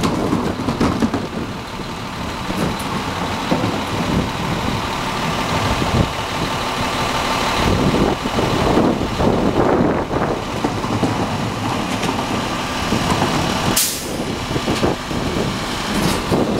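Heil Multitask SL garbage truck's hydraulic packer cycling through the hopper to compact the load, with the truck's diesel engine running and wind buffeting the microphone. A brief sharp sound near the end.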